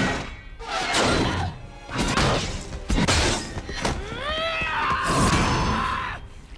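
Cartoon sound effects laid over an action scene: several sudden crashes and thuds, then about four seconds in a whistle that rises and falls, followed by a held tone.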